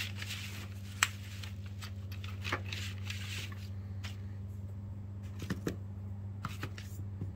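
Paper rustling and light taps and clicks as leftover glass powder is shaken off a sheet of paper and put away, with one sharp click about a second in. A steady low electrical hum runs underneath.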